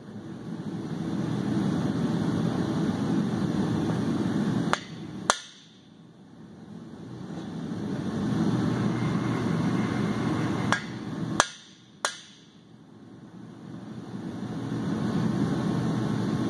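Hammer blows on a cam bearing installer's driver bar, tapping a new cam bearing into a 7.3 Powerstroke diesel engine block. There are five sharp strikes: two about five seconds in and three about eleven to twelve seconds in, over a steady low background noise.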